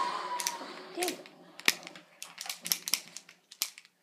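Irregular sharp clicks and taps of the recording phone being handled. A high tone gliding down fades out about half a second in.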